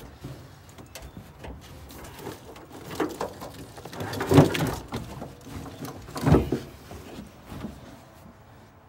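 Molded car carpet rustling and scraping as it is pushed and worked into place around a loose wiring harness on a car's bare floor, with a few dull knocks, the loudest about four seconds in and another about two seconds later, and low straining grunts from the effort.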